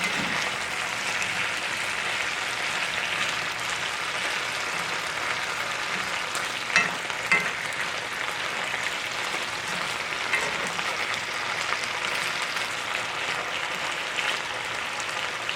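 Potatoes and onions frying in a cast-iron skillet over turned-up heat: a steady sizzle, with a few sharp clicks here and there.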